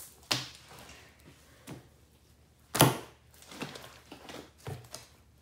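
Thick hand-soap slime being poked and pressed into bubbles by hand: a handful of short pops spread over a few seconds, the loudest a little under three seconds in.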